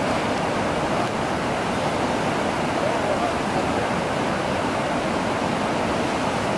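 Whitewater rapids of the Niagara River above the falls, a steady loud rush of churning water.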